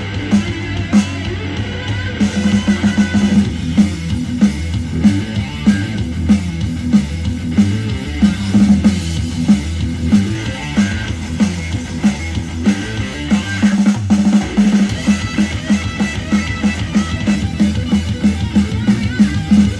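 Instrumental rock music with a drum kit and guitar, a fast steady beat and heavy bass, played back through a portable Bluetooth speaker for a sound test.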